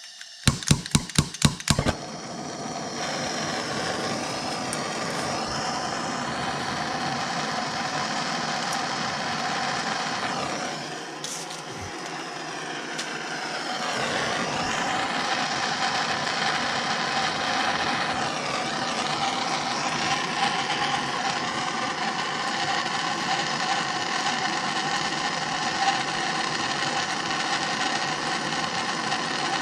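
A hand torch's igniter clicks rapidly for about two seconds, then the torch lights and burns with a steady hiss, which drops off briefly about halfway through before coming back.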